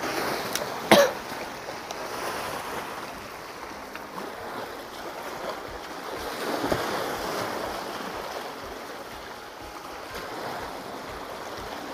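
Small sea waves washing and breaking over shoreline rocks, swelling about six to seven seconds in. A sharp click about a second in.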